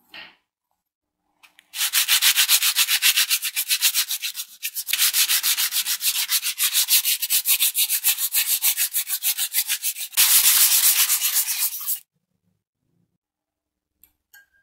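A flat metal hand file rasping back and forth across a small metal disc in quick, short strokes, several a second. The filing comes in three runs with two brief breaks and stops about two seconds before the end.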